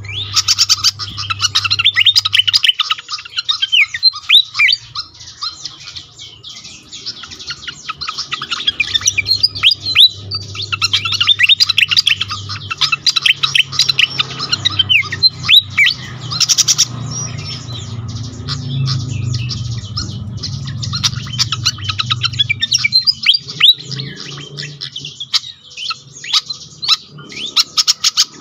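Malaysian pied fantail singing a fast, busy run of chirps and short whistled notes, with a couple of lulls, over a low steady hum.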